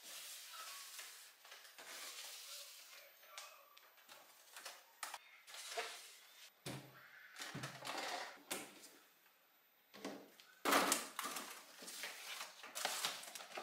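Kitchen handling sounds as food containers are put away: scattered clicks, knocks and rustles, with louder clattering bursts near the end.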